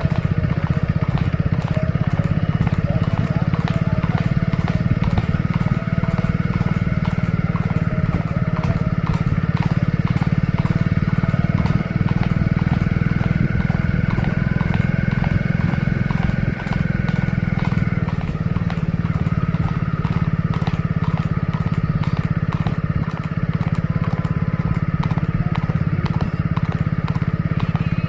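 Horse's hooves beating at a fast, even rhythm over a steady engine drone.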